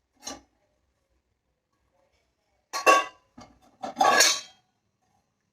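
Kitchen vessels and pots clinking and clattering against each other as they are lifted out of a dishwasher rack. There is a light knock near the start, then two louder bursts of clatter about three and four seconds in.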